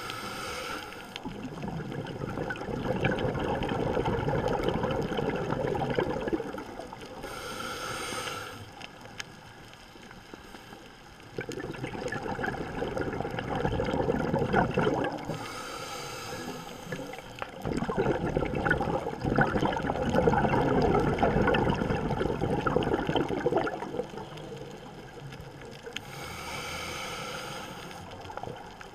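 Scuba diver breathing through a regulator underwater: a short hiss on each inhale, then a long rush of exhaled bubbles, repeating about every eight to nine seconds.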